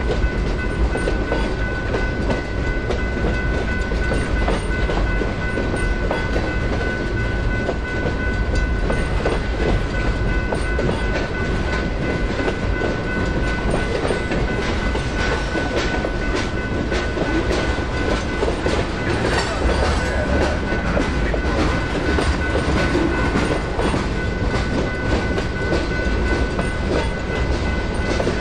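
Freight train rolling slowly through a grade crossing, its wheels clicking and clacking over the rail joints, with the crossing's bell ringing steadily.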